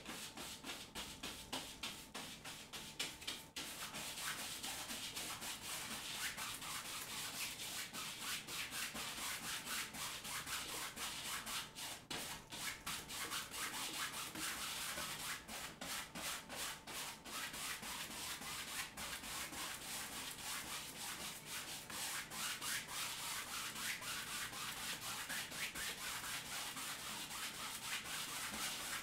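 Paintbrush scrubbing paint onto a canvas in rapid, continuous short strokes: a dry, scratchy rubbing.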